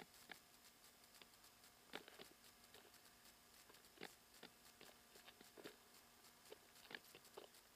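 Near silence: a faint steady hum and hiss with scattered soft clicks, the loudest about two seconds in and again near the end.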